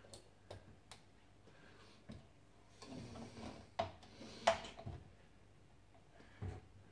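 A plastic squeeze bottle being handled at its cap: scattered light clicks and taps, with the sharpest clicks a little before and about halfway through, and a dull knock near the end.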